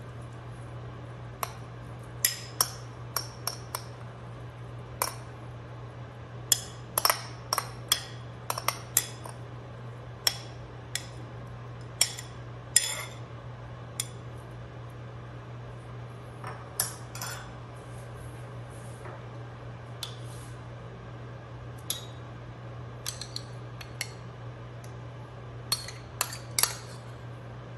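A metal spoon knocking and scraping against a small bowl and a stainless steel mixing bowl while chopped onion and then yogurt are scooped out: a long irregular string of sharp clinks. A steady low hum runs underneath.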